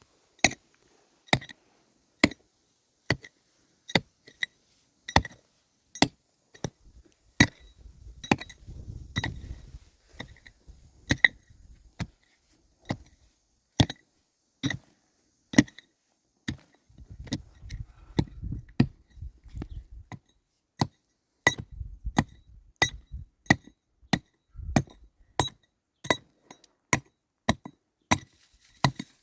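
Hammer driving nails into wooden planks: a steady series of sharp strikes, about one a second and quicker near the end, each with a short metallic ring.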